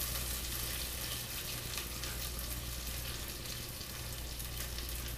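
Venison burger patty sizzling in the hot air-fryer basket just pulled from the fryer: a steady hiss with faint crackle over a low steady hum.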